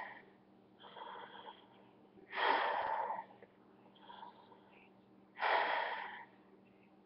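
Breathing through an M40 gas mask's filter and valves: three loud, hissing breaths about three seconds apart, with quieter breaths between them.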